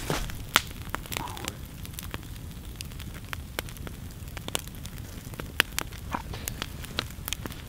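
Open wood campfire crackling, with irregular sharp pops and a few louder snaps.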